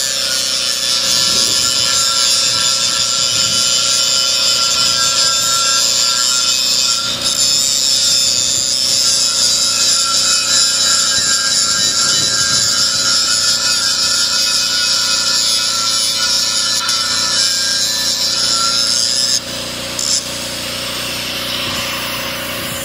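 Angle grinder grinding a square steel tube: a steady motor whine with the loud rasp of the disc on metal. About twenty seconds in the disc comes off the steel and the grinder runs free, quieter.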